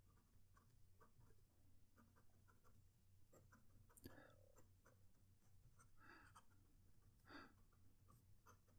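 Faint scratching and light ticks of a PenBBS 456 fountain pen nib writing quickly on lined paper, with a couple of slightly louder soft puffs later on.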